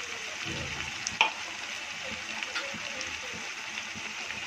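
Sliced onions and green chillies frying in oil in a kadai, under a freshly added layer of tomato paste: a steady sizzle with scattered crackles, one sharper pop about a second in.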